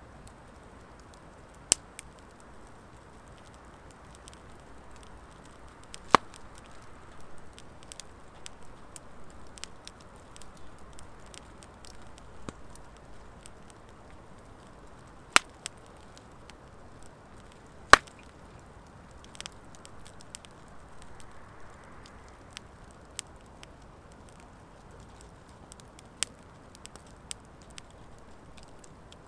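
Firewood of driftwood and dry hardwood burning in a fire pit: a soft steady hiss of flames with scattered sharp crackling pops, four of them much louder than the rest.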